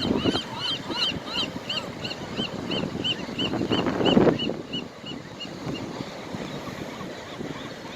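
A bird calls a fast series of short, high piping notes, about two and a half a second, that stops about five and a half seconds in, over steady surf and wind noise. About four seconds in a loud rush of noise swells and falls away.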